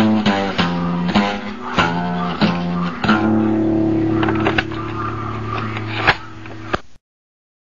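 The closing bars of a blues song: a run of quick notes, then a final chord held and ringing for about four seconds before the sound cuts off abruptly, about seven seconds in.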